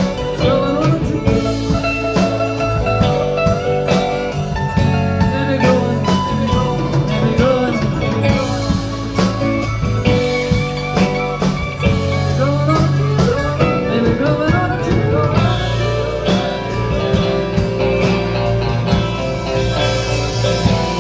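Live rock band playing with electric guitars, bass, keyboard and drums; a lead guitar line of gliding, bending notes runs over the steady bass and drum beat.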